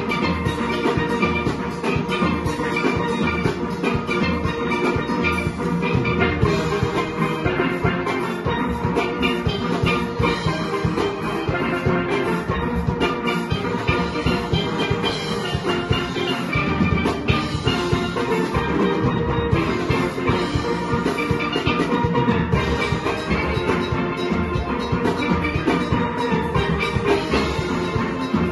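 Steel orchestra playing a soca arrangement: many chrome steel pans struck together in fast repeated notes over a steady driving drum-and-percussion beat.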